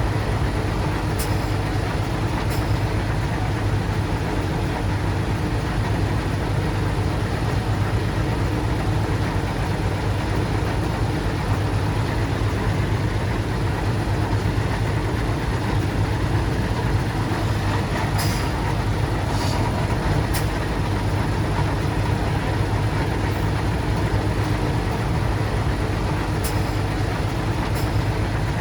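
Heavy earthmoving machine's engine running steadily at an even pitch, with a few short sharp clanks now and then.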